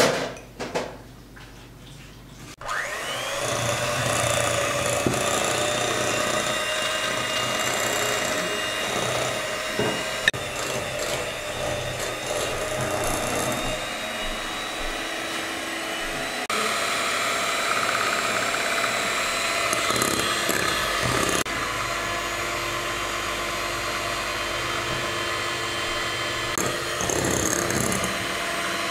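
Electric hand mixer switching on about two and a half seconds in with a rising whine, then running steadily as its beaters whip eggs and sugar in a glass bowl. Its tone shifts a couple of times along the way.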